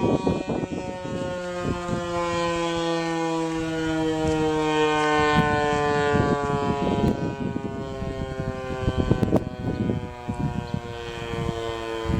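Outdoor tornado warning siren sounding for its routine monthly test, a steady multi-tone wail that slowly falls in pitch as it winds down. Gusts of wind rumble on the microphone throughout.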